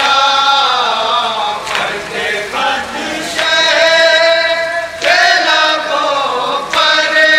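Men chanting a nauha, a Shia lament, in long held notes that rise and fall. The phrases break about every one and a half to two seconds.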